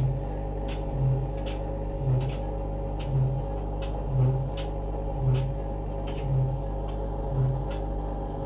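A machine hums steadily, with a low throb that repeats about once a second and faint clicks over it.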